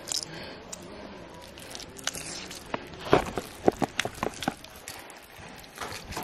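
Hands rubbing lime and marinade into raw beef in a plastic tub: wet squelches and sharp clicks, coming thick and fast from about three seconds in.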